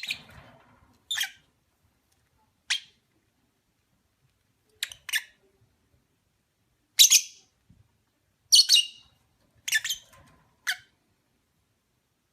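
Opaline parblue lovebird giving short, sharp, high-pitched chirps and squawks, singly or in quick pairs, a second or two apart.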